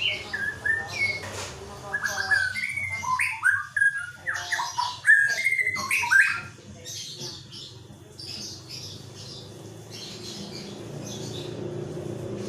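White-rumped shama (murai batu) singing a rich run of loud, varied whistled phrases that jump and sweep up and down in pitch, turning to softer high chirps after about six seconds.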